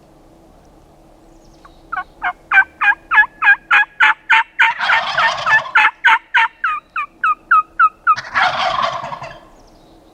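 Wild turkeys: a long run of yelps, about three a second and slowly falling in pitch, with a tom gobbling twice over it.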